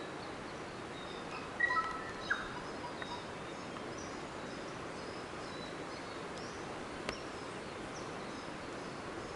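Forest birds calling: a few short clear whistles about one and a half to two and a half seconds in, and faint high chirps scattered throughout over a steady background hiss. A single sharp click comes about seven seconds in.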